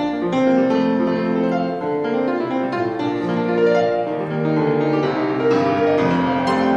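Classical piano music, a flowing melody over held chords, accompanying a ballet dance.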